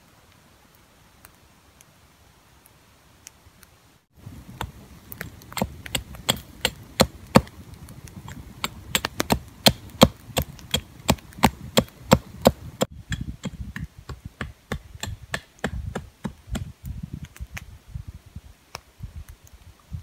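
Hatchet chopping into a stick laid on a log: a run of sharp wooden knocks, about two a second, starting suddenly about four seconds in after a faint opening.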